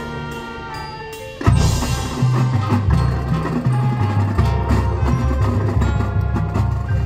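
Marching band with drumline playing a field show: held chords for about a second and a half, then the full band comes in loud with a heavy low bass line and drums.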